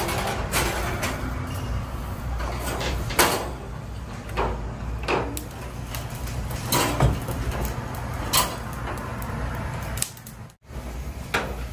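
Metal tongs clicking and knocking against a steel grill grate as dried hanchi squid is laid out and arranged, about ten scattered clicks over a steady low rumble, broken briefly near the end.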